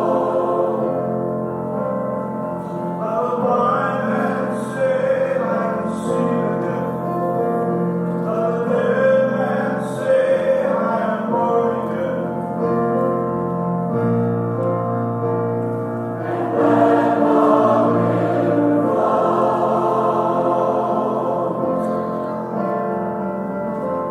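Church choir singing a hymn together, with long held notes and several voice parts sounding at once.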